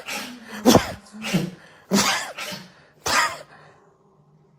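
An animal making a run of short, sharp, breathy sneeze- or cough-like bursts, about one every half second, stopping about three and a half seconds in.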